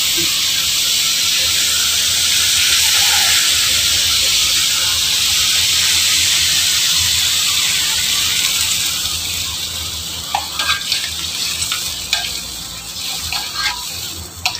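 Diced vegetables sizzling loudly in hot oil in a wok while they are stirred with a spatula. The sizzle dies down over the last few seconds as water is poured into the pan. After that, short scrapes and knocks of the spatula against the wok stand out.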